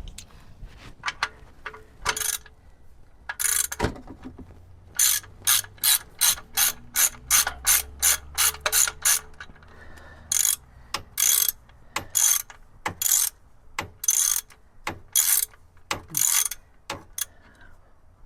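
Socket ratchet clicking in repeated back-strokes as the oil drain plug, just broken loose, is run out: a quick run of strokes in the middle, then slower, spaced strokes.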